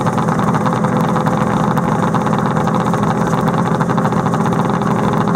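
Yamaha snowmobile engine running steadily at low speed as the sled pulls away slowly over the snow.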